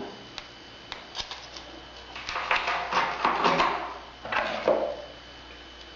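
Handling noise from the car alarm kit's parts: a few light clicks in the first second or so, then about a second and a half of rustling and clicking, and a shorter burst of it near the end.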